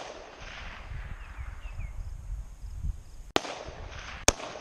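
Two sharp rifle shots about a second apart, the second louder, the first followed by a brief echo.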